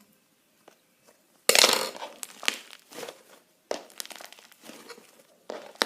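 Thick homemade slime being handled, squeezed and pulled by hand. A loud noisy burst comes about a second and a half in, followed later by a run of short crackles.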